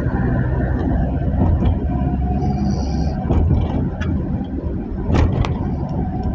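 A vehicle running with a steady low rumble, and two sharp knocks in quick succession about five seconds in.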